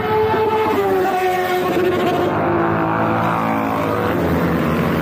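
Motorcycle engines of a group ride. A steady low engine hum runs underneath, while a higher whining engine tone falls slowly in pitch over the first few seconds as bikes ride past.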